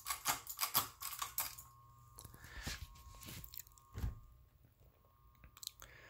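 A quick run of clicks as the pull chains are handled, then an SMC Impressions ceiling fan motor running on low speed with a steady electrical hum, and one knock about four seconds in. The hum does not come from a variable or solid-state speed control; the owner suspects his wiring, or that this motor simply hums.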